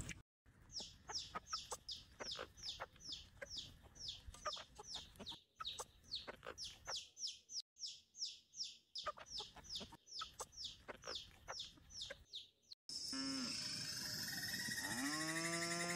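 Baby chicks peeping: a rapid run of short, high, falling cheeps, several a second. About thirteen seconds in it cuts to a steady high hum, with a long, drawn-out cow moo near the end.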